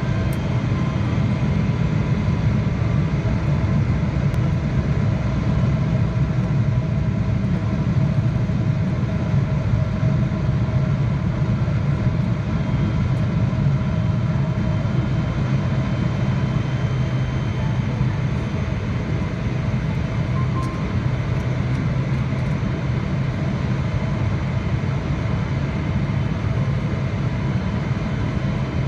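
Steady cabin noise of a Boeing 777-300ER heard from a window seat over the wing during descent: a low, even rumble of airflow and its GE90-115B turbofans, with a few faint steady tones above it.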